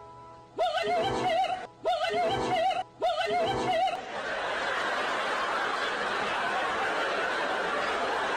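Edited-in comedy sound effects: three short, warbling, laugh-like bursts about a second apart, then a steady rushing noise for the last four seconds.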